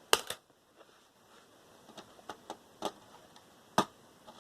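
Sharp clicks and taps of hand tools against metal and plastic motherboard parts as the board is pried and pulled apart: a loud double click at the start, a few light taps in the middle, and one sharp click near the end.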